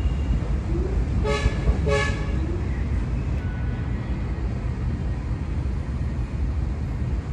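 Two short toots of a vehicle horn, about half a second apart, near a second and a half in, over a steady low rumble.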